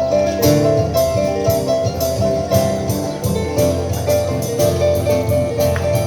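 Harp playing a lively piece, with quick plucked melody notes over a steady bass line.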